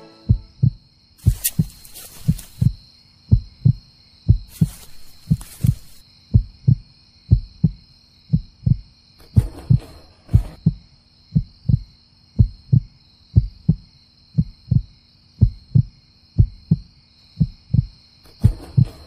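Heartbeat sound effect: a low double thump repeating about once a second, with a faint steady high tone behind it and a few brief hissy rustles.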